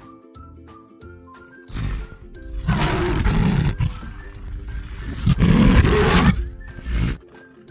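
Lion roaring: two long, loud roars with a shorter grunt before and after, over light tinkling background music.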